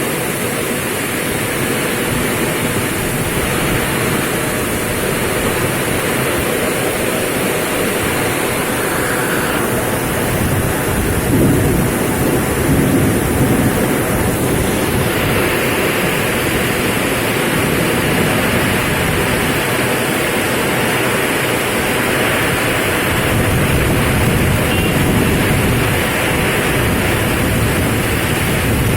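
Heavy tropical downpour with strong wind: a loud, steady rush of rain that swells a little about a third of the way through.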